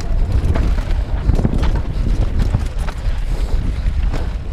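Wind buffeting the microphone of a helmet-mounted action camera, with the clatter and knocks of a Santa Cruz Bronson mountain bike rattling over rough trail.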